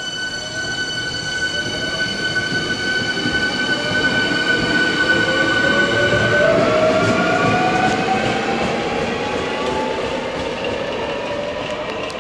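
Hankyu electric train pulling out, its traction motors whining and climbing steadily in pitch as it gathers speed, over wheel-on-rail noise. A steady high-pitched tone cuts off about six and a half seconds in.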